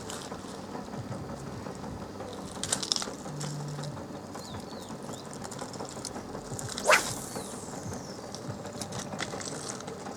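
Spinning reel being worked during a retrieve, with mechanical clicking; a short cluster of clicks a few seconds in and a single sharp swish about seven seconds in.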